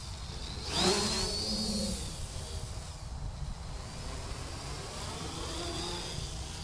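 Quadcopter's four brushless outrunner motors (SunnySky 2212 980kv) spinning 10-inch plastic props in flight: a buzzing whine whose pitch rises about a second in as it throttles up.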